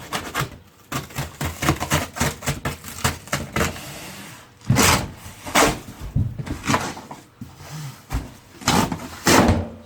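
Cardboard boxes being handled and pulled apart: a string of knocks and rustles, with several longer loud scrapes of cardboard sliding against cardboard, the loudest near the end.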